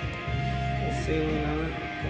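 Background music: a song with guitar and sustained bass notes.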